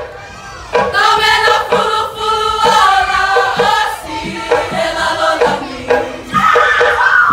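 A girls' choir singing a Niuean action song in unison, many voices together. After a short lull at the start, the singing comes back in strongly about a second in.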